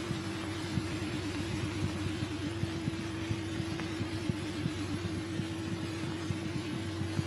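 Background noise of an old film soundtrack: a steady hum with a tone that wavers now and then, under faint hiss and frequent small crackles and pops.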